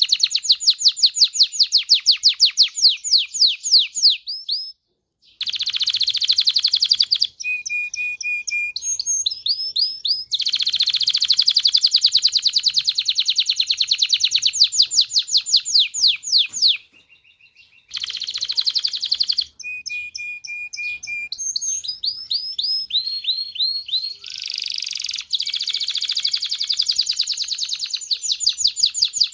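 Domestic canary singing: long, fast trills of rapidly repeated high notes, alternating with phrases of held whistled notes, broken by two short pauses, about five seconds in and about seventeen seconds in.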